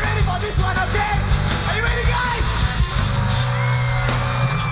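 Live rock band playing, a singer's voice over loud guitars, bass and drums, with a held note near the end.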